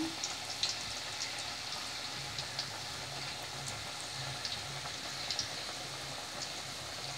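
Drops of rice-and-moong-dal-flour batter falling through a perforated ladle into hot oil and frying as boondi. They make a steady sizzle with many small, scattered crackles.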